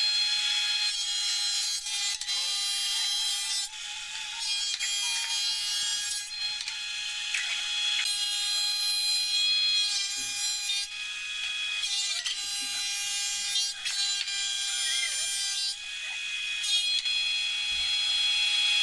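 Small electric power tool running with a high-pitched whine, in stretches of a second or two with brief breaks.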